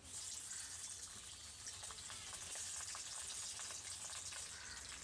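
Marinated rohu fish pieces frying in hot mustard oil in a kadai: a steady sizzle with small crackles that starts suddenly as the first piece goes into the oil.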